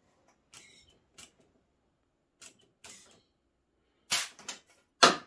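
Compressed air hissing in short blasts from a tire-inflator air chuck as it fills the rubber bladder of an expandable plumbing test plug toward 40 psi, with two louder blasts near the end.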